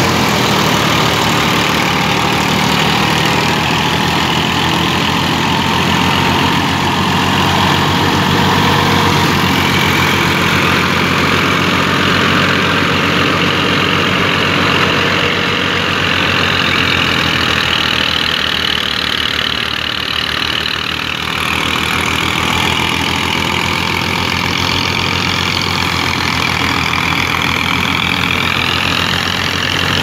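A tractor's diesel engine running steadily, driving a wheat thresher through a PTO shaft, with the thresher's drum and fan making a higher whine that wavers in pitch above the engine's fast low beat.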